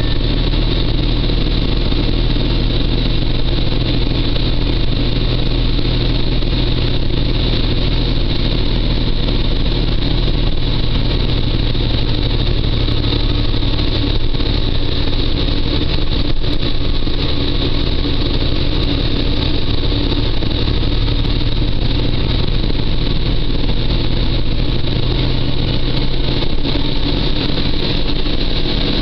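Peterbilt truck's diesel engine running steadily as heard inside the cab, with the engine note briefly changing a few times as the driver shifts through the gears of the manual transmission.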